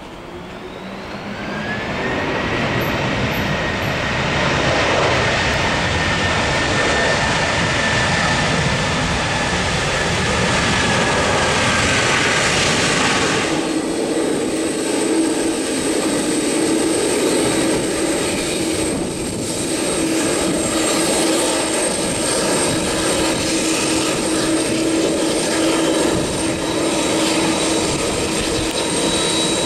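Airbus A330-200's General Electric CF6 turbofans just after touchdown: the jet noise swells loud, with a whine that climbs about a second in and then slowly falls as the airliner slows on the runway. Steady engine noise with a low hum follows as it rolls past.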